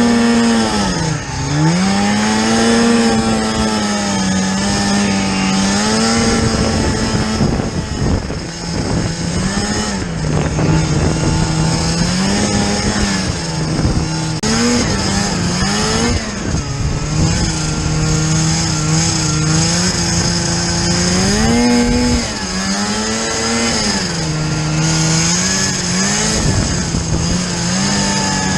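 Snowmobile engine running hard while being ridden, its pitch rising and falling over and over as the throttle is worked, over a steady rushing hiss.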